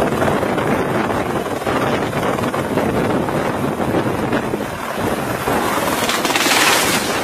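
Light single-engine helicopter (AS350 Squirrel type) lifting off, its rotor and engine noise mixed into heavy wind buffeting of the microphone by the rotor downwash. Near the end a louder, higher rushing hiss swells briefly as the helicopter pitches over out of control.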